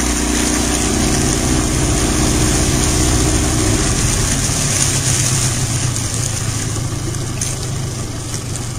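Yamaha two-stroke outboard motor running with the boat under way in forward gear, a steady engine note over wind and water hiss; the engine tone grows less distinct after about four seconds.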